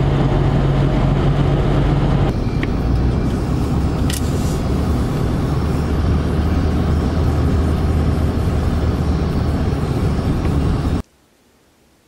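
Road and engine noise inside a moving vehicle's cab: a steady engine hum at highway speed, which changes after about two seconds to a lower hum as the vehicle drives slowly, with a couple of light clicks. The sound cuts off suddenly about a second before the end, leaving only faint background noise.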